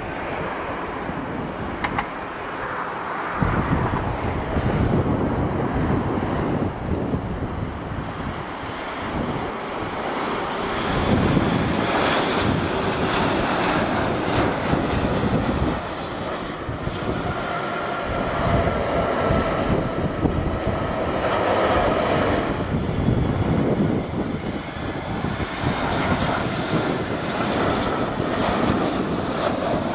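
Jet airliner engines running as a Boeing 737-800 comes in to land, a steady jet rush with faint whining tones, buffeted by strong wind on the microphone. About 22 seconds in, the sound changes to a second airliner, an Airbus A320, on its approach.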